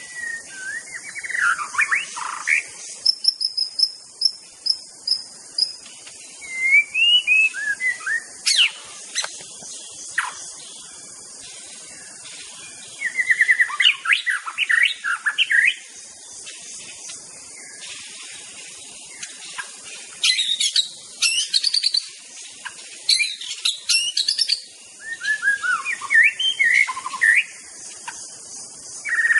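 White-rumped shama singing: varied whistled phrases, rapid chattering runs and a high trill, delivered in bursts with short pauses between them, over a steady high hiss.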